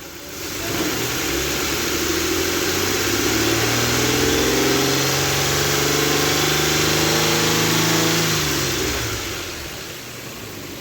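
Nissan Patrol Y62 engine revved up, held at high revs for several seconds, then dropping back to idle near the end. It runs with the fan clutch removed and no whistle is heard, showing that the whistle came from the fan clutch.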